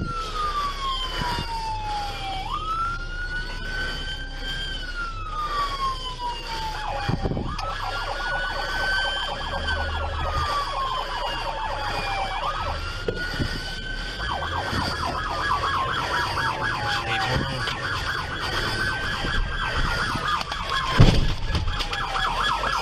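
Police car siren wailing, heard from inside a patrol car: each cycle rises quickly, holds, then falls slowly, repeating about every five seconds. A faster pulsing siren tone runs under it for much of the time. A sharp thump comes near the end.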